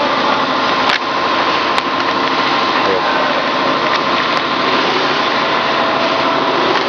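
A vacuum membrane press running: steady loud machine noise with a constant whine, and a couple of sharp clicks about one and two seconds in.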